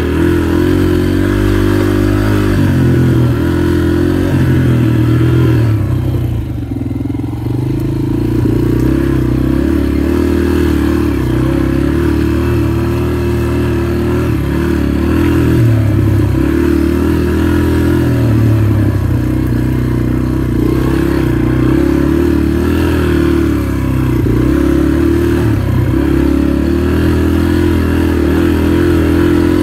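Dirt bike engine running as it is ridden along a rough trail, its pitch rising and falling with the throttle. About six seconds in it eases off briefly, then picks up again.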